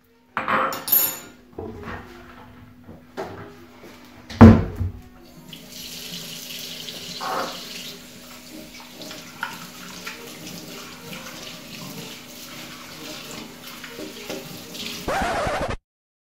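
Dishes knocking in a stainless steel kitchen sink, with one loud knock about four and a half seconds in. Then the tap runs steadily while something is washed under it, and the sound cuts off abruptly near the end.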